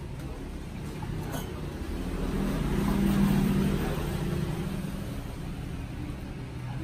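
Road traffic rumble, with a motor vehicle passing close by, loudest about three seconds in.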